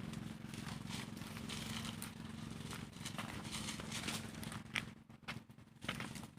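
Pressure-washer machine running with a steady motor hum, under irregular crackling of spray hitting vegetation.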